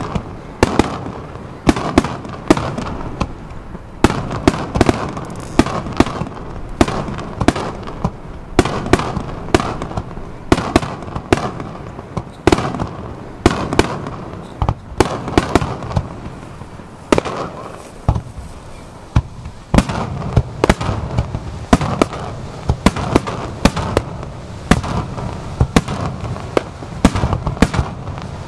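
Aerial fireworks display in a dense barrage: several sharp bangs a second from bursting shells, with echoing booms filling the gaps between them.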